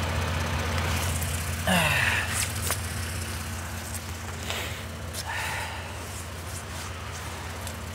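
Car engine idling with a steady low hum, and a short falling voice sound about two seconds in.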